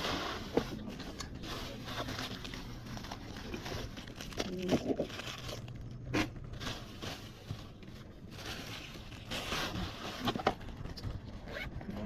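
Thin plastic bag and foil party balloons crinkling and rustling in irregular bursts as they are handled and rummaged through.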